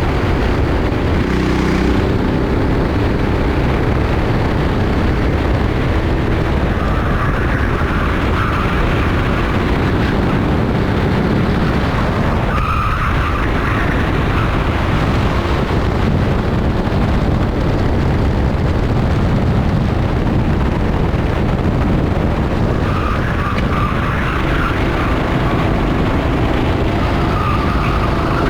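Rental kart engine running at racing speed for a full lap stretch, with the tyres squealing through corners several times.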